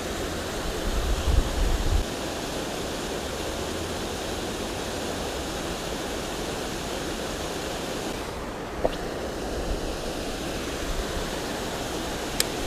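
Steady rushing outdoor noise, with low rumbling swells in the first two seconds and a few faint ticks later on.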